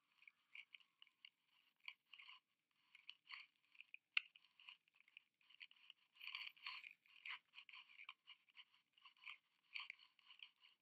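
Faint, irregular crackling and scratching from a high-altitude balloon payload as its onboard camera rides up through cloud, like the housing or payload box rubbing and creaking.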